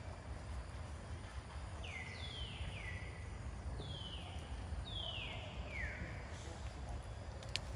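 Baby macaque giving a series of high squeals, each about half a second long and sliding down in pitch, several in quick succession, over a steady low outdoor rumble. A single sharp click near the end.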